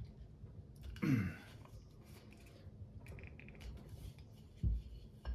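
Faint clicks and scrapes of a wooden puzzle box being handled while someone tries to work out how it opens, with a short groan falling in pitch about a second in and a low thump near the end.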